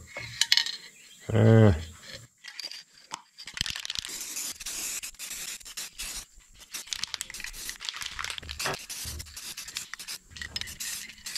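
Aerosol spray can of yellow paint hissing in uneven spurts from about three seconds in, with scattered sharp clicks.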